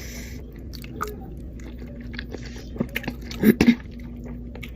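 A person chewing and biting food close to the microphone, with scattered small wet clicks and a louder cluster about three and a half seconds in. A steady low hum runs underneath.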